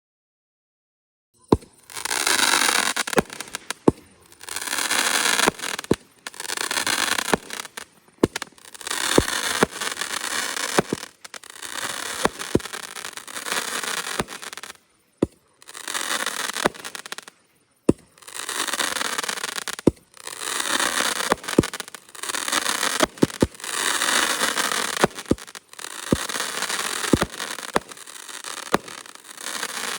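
A multi-shot aerial firework cake firing shot after shot. It starts about a second and a half in, and each shot is a sharp pop followed by about a second of crackling, roughly one shot every one to two seconds.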